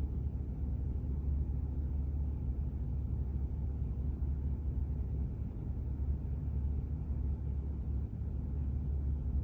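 Steady low engine rumble, with a few faint steady tones over it and no change in level.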